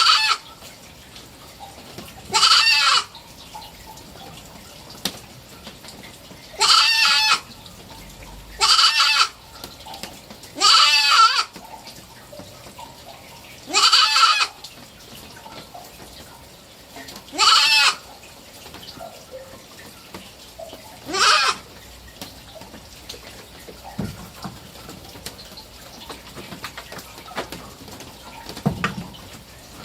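Three-month-old kid goat bleating: about eight short, loud, wavering bleats every two to four seconds, the last about two-thirds of the way through.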